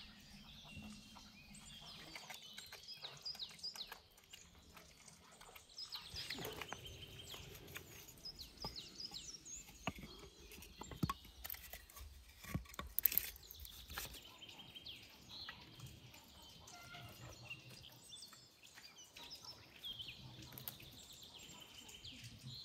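Small birds chirping again and again, with a few sharp knocks and clicks around the middle as split firewood is stacked.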